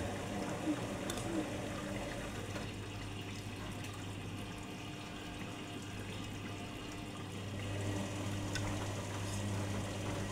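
Arçelik 7103 front-loading washing machine tumbling wet laundry in water: motor hum with sloshing. It eases off in the middle as the drum pauses, then picks up again near the end.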